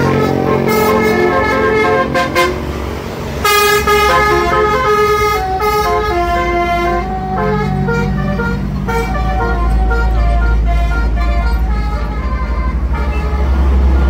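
Basuri 'telolet' bus horn, a set of roof-mounted air trumpets playing a quick tune of stepping notes, over the low running of the bus engine, which grows louder in the second half.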